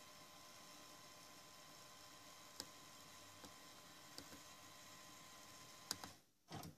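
Faint clicks of the buttons on a JVC KS-FX630R car cassette receiver being pressed, over a steady low hiss with a thin steady tone. Near the end come two sharper clicks and then a short thud.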